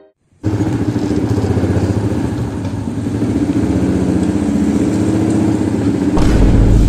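Small Honda step-through motorcycle's engine running close by as it rides up and ticks over at idle, a fast steady pulsing. A brief deep rumble comes near the end.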